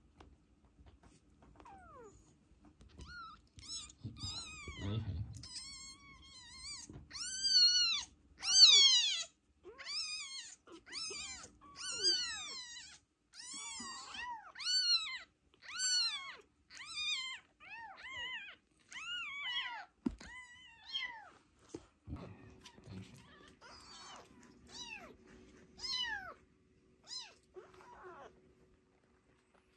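Kittens mewing: a long string of high-pitched, arching cries, about one a second, loudest around a third of the way in and thinning toward the end.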